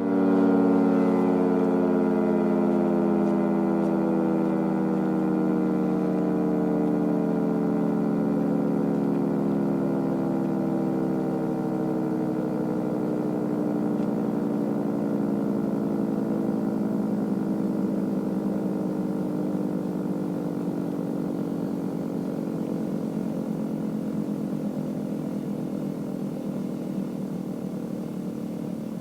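Federal Signal 3T22A three-tone rotating warning siren winding down, its chord of tones sliding slowly and steadily lower in pitch and fading gradually as the rotor coasts to a stop at the end of the attack cycle.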